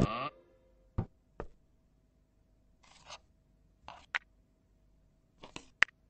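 Sparse, quiet cartoon sound effects: two soft clicks, a few short hissy bursts, and two brief high squeaks, over a faint steady hum.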